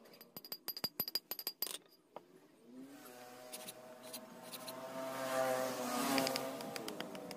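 A quick run of small metallic clinks and taps with a bright ring, then sharper knocks of a blade working a wooden knife handle. Sustained, wavering pitched tones rise in the background from about halfway.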